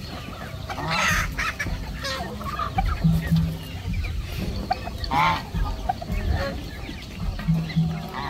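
Chickens clucking in a mixed flock of chickens, ducks and geese feeding together, with two louder squawking calls about a second in and about five seconds in.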